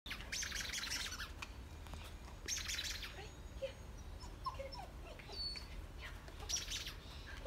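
Kelpie puppy yapping during play, in three short bursts with faint chirps between them.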